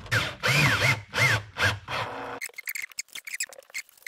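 Four short whirring bursts, each rising and falling in pitch, then lighter rubbing, squeaks and clicks from about two and a half seconds in as a hand works the new foam surround of a vintage Cerwin Vega woofer.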